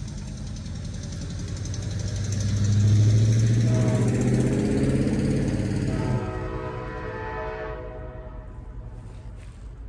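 CSX freight train's diesel locomotives passing: a deep engine rumble swells to its loudest about 3 seconds in and drops off sharply about 6 seconds in. The air horn sounds again just after, a warning for the grade crossing, before the sound fades.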